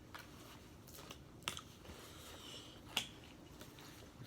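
Sparse faint crisp clicks and crunches from tortilla-chip nachos being eaten, with two sharper ones about a second and a half and three seconds in.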